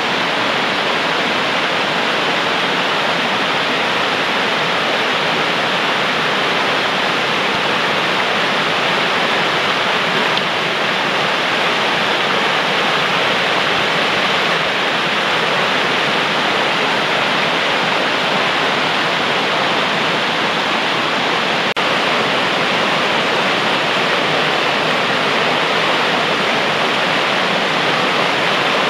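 Mountain trout stream rushing over rocks and small rapids: a loud, steady wash of running water.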